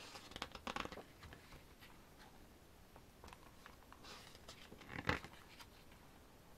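Glossy pages of a hardcover photobook being turned by hand: faint paper rustles and flicks, a quick cluster in the first second and a louder flick about five seconds in.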